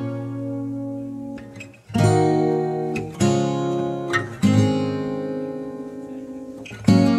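Background music: a guitar strumming chords, each left to ring out and fade before the next.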